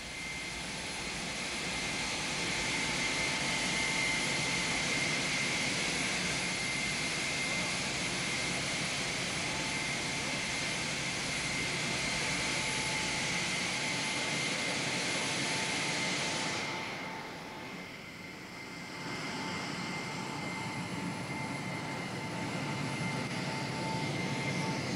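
Jet airliner engines running nearby: a steady rushing noise with a high whine. About two-thirds through, the sound changes abruptly, the high hiss dropping away while a lower, steady hum and whine go on.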